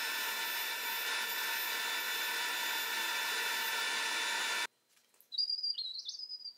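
Bandsaw cutting a sheet of 1/4-inch plexiglass, a steady sound with many fixed tones, which stops abruptly about four and a half seconds in. A faint high wavering squeak follows near the end.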